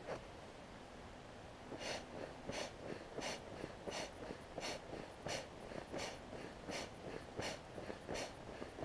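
Nemo Cosmo sleeping pad being inflated with its built-in foot pump. A short whoosh of air comes with each step, about one every 0.7 seconds, starting about two seconds in.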